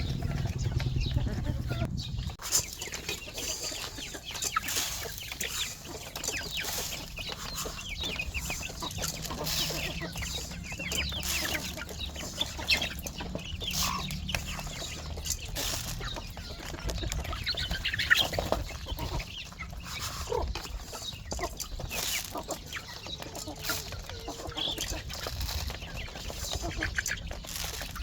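Domestic chickens clucking, with short calls and small clicks and scuffs scattered throughout. A low rumble under the first two seconds cuts off abruptly.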